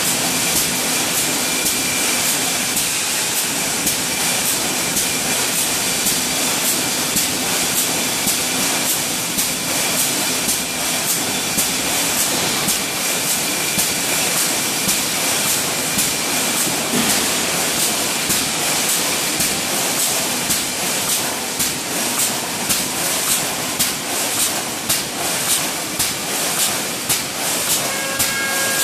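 Automatic wire mesh welding machine running: a steady hiss with a fast, even run of sharp clicks as its rows of pneumatic welding cylinders cycle.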